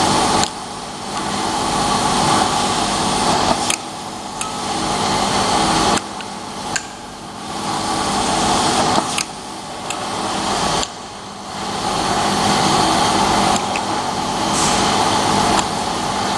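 Labeling machine for round tins running with a steady mechanical hum. The noise swells and then drops off abruptly every few seconds, often with a sharp click, as it cycles through the containers.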